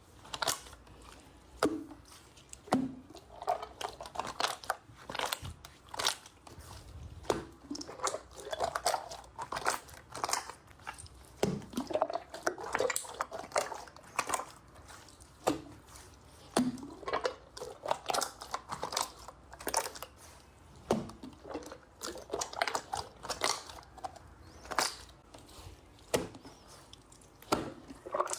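Slime being squeezed and poked by hand: a steady run of sticky pops and crackles, several a second, with short wet squelches in between.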